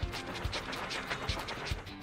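Cartoon background music with a steady drum beat, about two kicks a second under quick high ticks.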